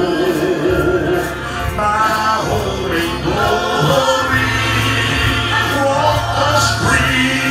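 Gospel vocal group singing in harmony with microphones, over instrumental accompaniment with a steady beat and bass.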